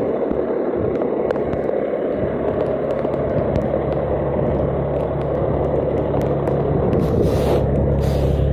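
Fire engine's diesel engine idling: a steady low drone that grows louder about two seconds in, under a constant hiss, with two short hisses near the end.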